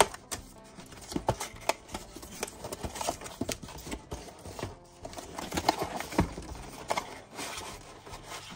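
Cardboard packaging being opened and handled: irregular clicks, taps and scraping of stiff card as the flaps and inner cardboard insert of a headlamp box are folded back and the box is slid out of its sleeve.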